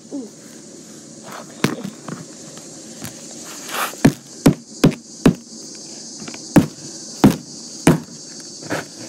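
A hammer striking a box repeatedly: about nine sharp blows at an uneven pace, most of them in the second half.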